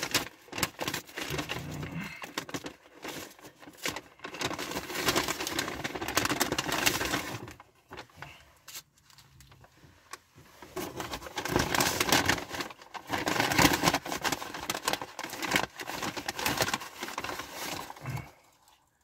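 Food packaging being handled: a long run of dense crinkling and crackling, with a quieter pause of about two seconds around the middle.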